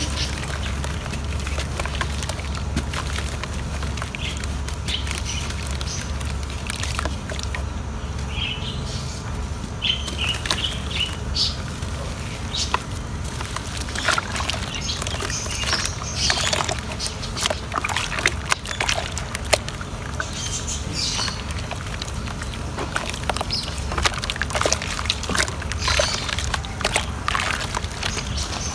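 Large chunks of pure cement crumbling in water: a steady run of small cracks and crackles over light sloshing, thickening from about a third of the way in, with a steady low hum underneath.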